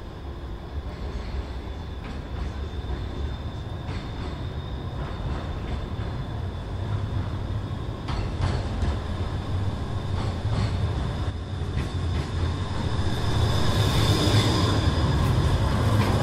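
Low rumble of passing street traffic, growing gradually louder and loudest near the end, with a faint high steady whine over it.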